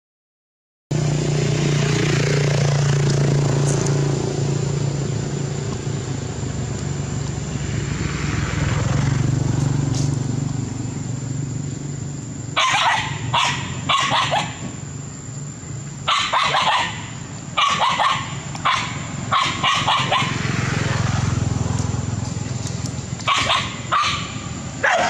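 Dogs barking at monkeys in short, repeated bursts of several barks, starting about halfway through, over a steady low rumble.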